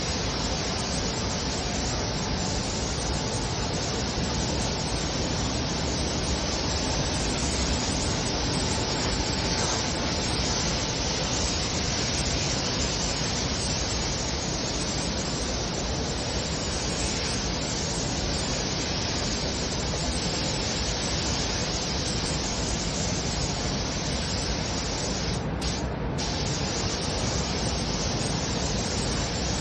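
Steady hiss of a compressed-air spray gun applying underbody coating, with a short break near the end.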